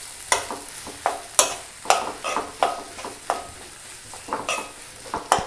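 A spoon scraping and clinking against a pan as mashed potato is stirred into fried onion masala, in irregular strokes of about three a second, some ringing briefly. A faint sizzle runs underneath.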